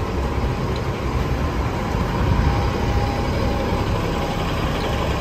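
Engine of a large bus standing at the stop and idling close by: a steady low rumble.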